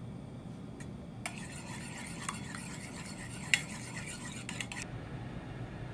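A metal spoon beating eggs in an enamel bowl, scraping and clinking against the bowl's sides, with one sharp clink about halfway through. The beating starts a little over a second in and stops near the end.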